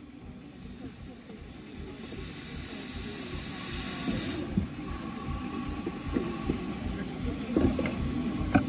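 Steam hissing from a 4-inch scale miniature traction engine, building up for a few seconds and cutting off suddenly about halfway through, over the engine's low, uneven running.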